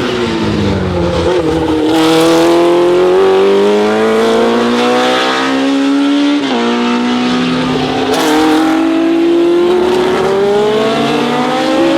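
A 1970s Lola sports-prototype race car's engine accelerating hard. The pitch dips briefly at first, then climbs for several seconds, drops sharply at an upshift about halfway through, and climbs again.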